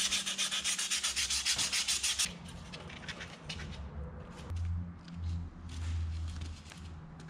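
Hand-sanding a foam block with a sanding pad: quick, even back-and-forth strokes, about eight a second, for about two seconds. Then quieter rustling as the foam piece is handled.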